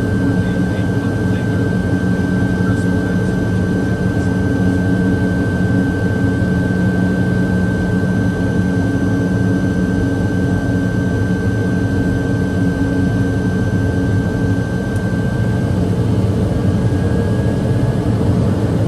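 TBM 700's Pratt & Whitney PT6A turboprop engine running steadily: a constant high turbine whine over a low drone. Near the end the whine shifts slightly higher in pitch as the engine note changes.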